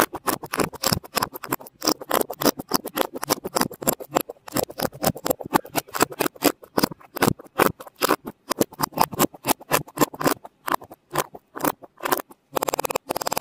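Slime being squished and worked by hand, a dense irregular run of sticky crackling pops and clicks, turning into a thicker continuous crackle near the end.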